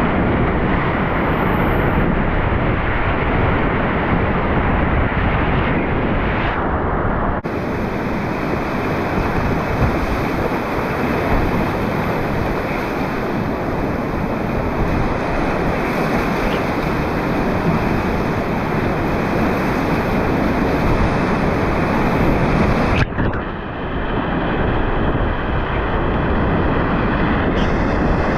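Whitewater rapids of the Deschutes River rushing loud and steady, heard close to the water. The sound changes abruptly twice, at about seven and twenty-three seconds in.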